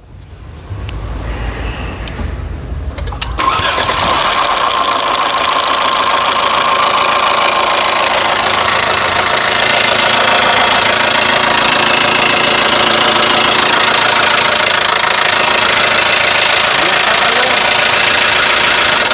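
Mercedes-Benz engine cranked by the starter for about three seconds, then catching and running with an intense, loud mechanical noise, which stops suddenly near the end. The mechanic attributes the noise, present both at start-up and while running, to a loss of oil pressure.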